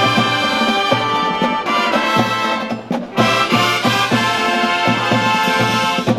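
High school marching band playing a brass piece, trumpets and trombones over a steady beat. The playing breaks off for an instant about three seconds in, and the music stops abruptly at the very end.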